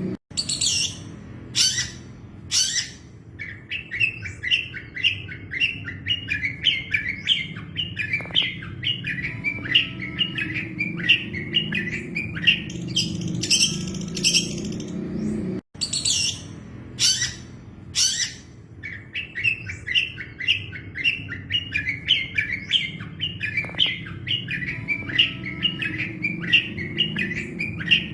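Long-tailed shrike (cendet) singing: a few loud, sharp high notes, then a fast chattering run of notes, over a steady low hum. The same sequence starts over about halfway through.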